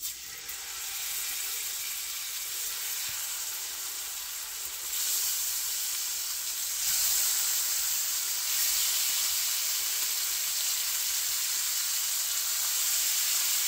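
Seasoned walleye fillets sizzling in hot butter and avocado oil in a cast iron skillet. The sizzle gets louder in steps about five and seven seconds in as more fillets are laid in the pan.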